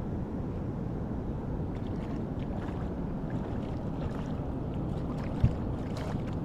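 Hooked American shad splashing at the surface beside a kayak and a hand grabbing it out of the water, with one sharp knock about five seconds in, over a steady rush of wind and river water.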